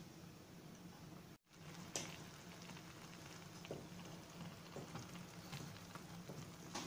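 Apple slices simmering in sugar syrup in a pan, a faint steady bubbling with a few small clicks. The sound cuts out briefly about a second and a half in.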